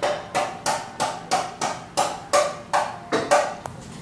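Evenly spaced knocks with a short ringing pitch, about three a second, stopping after about three and a half seconds.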